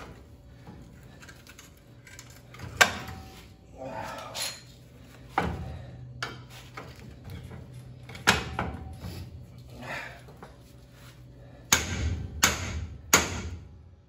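Hammer blows on a steel bar driving at a seized lower ball joint in a 1970 Chevrolet C10's front suspension: about six loud ringing metal clanks a few seconds apart, the last three close together, with lighter tool clinks between them over a steady low hum.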